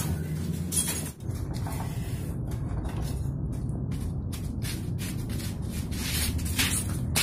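A wooden house door being handled and pulled shut: a few short knocks and clicks over a steady low rumble.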